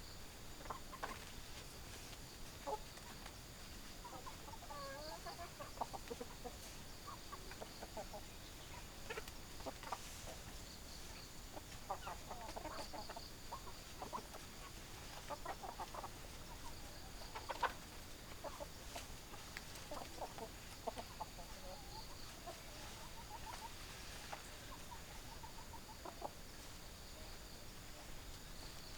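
Hens clucking in short, scattered bursts of calls, over a faint steady high-pitched whine.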